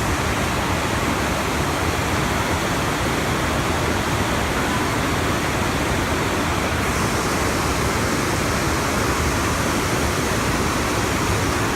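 Waterfall rushing: a loud, steady roar of falling water, getting a little hissier about seven seconds in.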